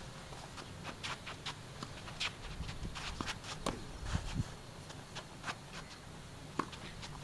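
Tennis rally: sharp pops of the racket striking the ball every second or two, the nearer player's hits loudest, mixed with quicker, lighter footsteps and shoe scuffs on the court.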